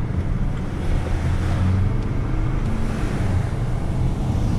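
Ice cream van's engine running as the van pulls away, heard from inside the cab as a steady low hum under engine and road noise.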